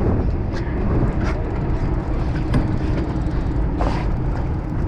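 Charter fishing boat's engine running steadily, a continuous low drone, with a few short knocks on board.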